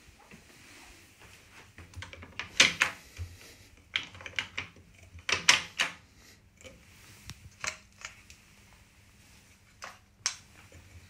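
Sharp clicks and knocks of a door latch and handle as a glazed back door is worked open, coming in short clusters of several clicks, with a few single knocks later.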